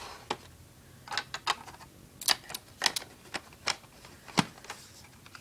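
A dozen or so sharp, irregular clicks and taps of a plastic smoke detector being handled; the alarm itself is not sounding.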